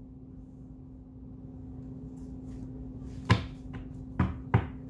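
Oracle cards and a card deck handled on a wooden table: three sharp taps in the second half, over a steady low hum.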